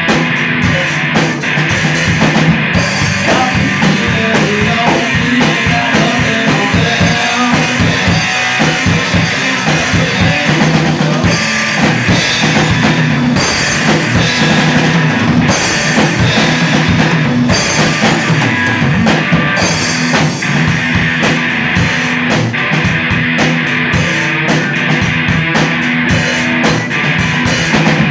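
Rock band playing live, with drum kit and guitar.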